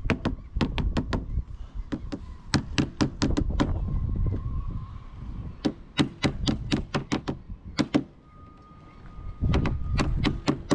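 Wooden mallet knocking a rubber rubbing strake down onto a boat's hull, in quick runs of sharp taps about three a second with short pauses between runs. Each blow drives the strake's top edge downwards so that it pops into place.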